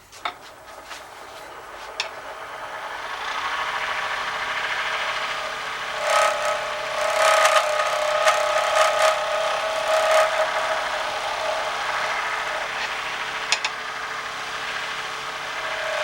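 Wood lathe spinning a pen blank while a turning tool scrapes it, with a strange squealing noise of several steady high tones. The squeal comes in about six seconds in over the cutting and fades after about ten seconds. Its cause is unknown to the turner.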